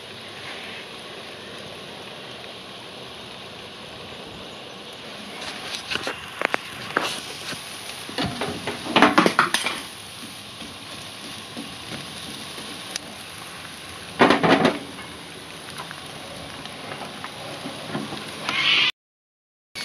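Vegetables and burger patties sizzling on a barbecue hotplate, with a metal spatula scraping and clattering against the plate several times. The sound cuts out briefly near the end.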